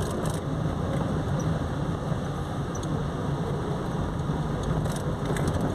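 Car driving along at low speed, heard from inside the cabin: a steady low engine hum with road and tyre noise.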